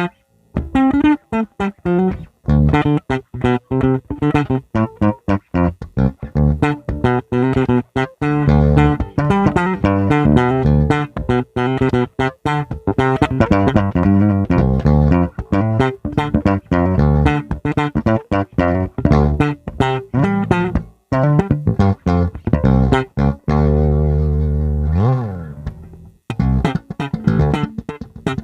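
Epiphone Thunderbird electric bass played solo on its neck pickup, recorded direct through an iRig interface: a busy run of plucked notes, with a long held note near the end that slides up and back down.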